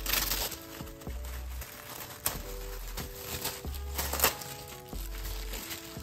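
Tissue paper rustling and tearing as a package is unwrapped, with sharper crinkles right at the start, about two seconds in and about four seconds in. Underneath runs background music of held chords over a slow bass line.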